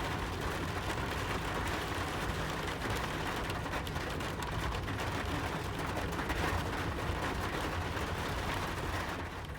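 Wood fire crackling, thick with short pops and snaps over a steady low rush, starting to fade down at the very end.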